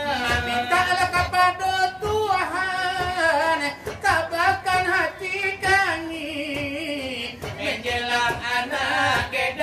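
Selawat dulang: a singer's voice carrying a long, ornamented melismatic line, with steady hand beats on a brass tray (dulang) under it.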